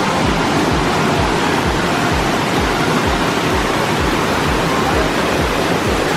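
Steady, loud rush of water with no letup. Low thuds repeat about three times a second beneath it.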